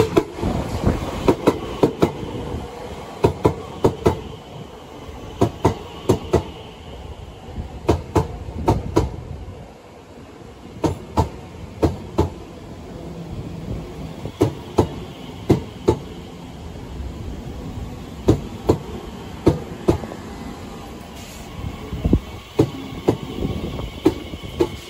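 Class 345 electric train running past at close range: a steady rumble with its wheels clicking over rail joints in quick pairs, over and over.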